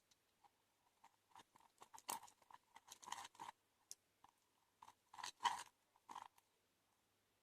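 PVA-glue slime being stirred and mixed: faint sticky crackling and clicking in two spells of quick irregular clicks.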